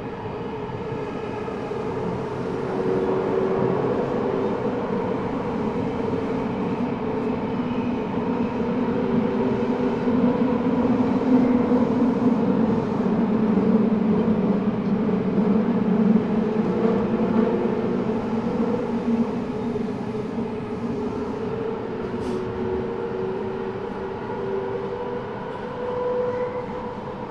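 Eidan 6000 series subway car running between stations in the tunnel, heard from inside the car: wheel-and-rail rumble with steady whining tones from its traction equipment. This car carries a high-pitched Mitsubishi three-level VVVF inverter taken over from the 7000 series, which makes it sound slightly different from other 6000 series cars. The sound grows louder toward the middle and eases off a little near the end.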